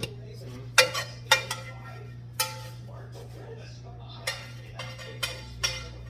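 Metal utensil clinking and scraping against a metal pot while eating from it: about eight sharp, uneven clinks, each with a brief ring, over a steady low hum.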